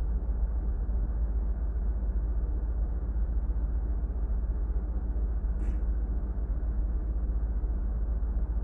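Steady low rumble of running machinery in a ship's engine room.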